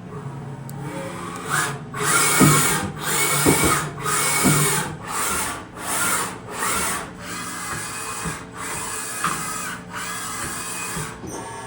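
DMG Mori Seiki DuraVertical 5100 CNC vertical machining center moving its axes back and forth at rapid traverse: about nine whirring strokes, roughly one a second, each a servo whine with hiss that speeds up and stops.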